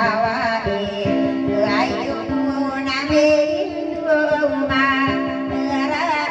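A song: a singer's wavering, ornamented melody over instrumental backing with held low notes and a steady beat.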